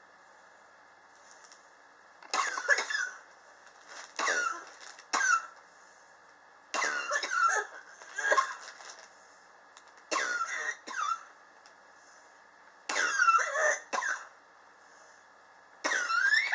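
A man coughing over and over in short fits of one to three coughs, a fit about every three seconds, with the last fit near the end the loudest. It is a chronic cough that has lasted for years.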